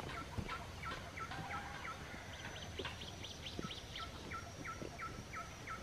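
White-breasted waterhens (ruak-ruak) calling faintly: a run of short falling notes, about two to three a second, with a higher run of notes overlapping in the middle.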